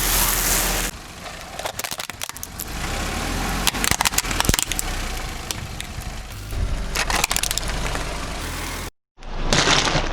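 Car tyre rolling over and crushing brittle objects: a dense run of irregular cracks and crackles over the car's low running rumble. A loud rushing noise comes at the start, and again just after an abrupt cut near the end.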